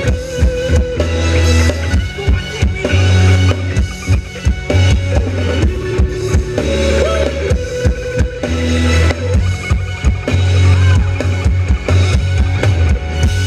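Thai ramwong dance band playing loudly: a steady drum-kit beat under a heavy bass line in long held notes, with melody lines over it.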